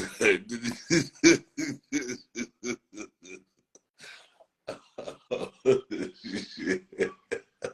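A man laughing in two runs of short, pitched bursts, about four a second, with a brief pause between the runs.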